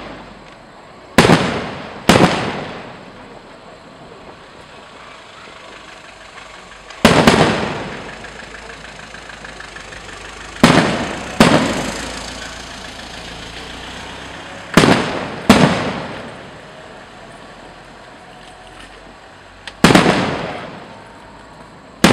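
Aerial firework shells bursting overhead: about eight sharp bangs, several coming in pairs less than a second apart, each trailing off in a rolling echo.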